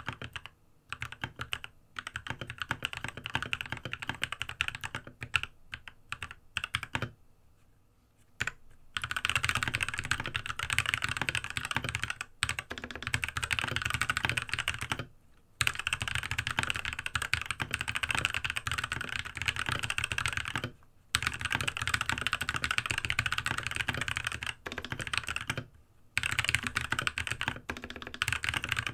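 Fast touch-typing on a Monstargear MK308 mechanical keyboard with spray-lubed Gateron optical switches, set on a bare desk with no desk mat. A rapid stream of key clacks starts unevenly, pauses for about a second near the start, then runs fast and continuous with a few brief breaks.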